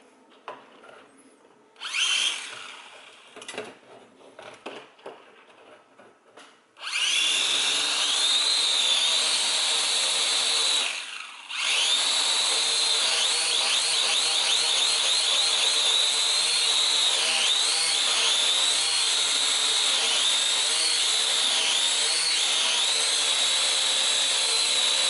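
A Syma X5 clone quadcopter's small brushed motors and propellers spin up about seven seconds in and run with a loud, steady whine whose high pitch wavers as the throttle moves. They cut out briefly near the middle and spin back up. Before that there are a few light handling knocks.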